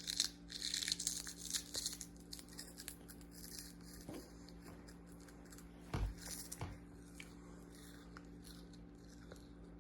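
Crisp crunching and crackling of a crunchy snack, in quick clusters that are densest in the first three seconds, with one dull thump about six seconds in.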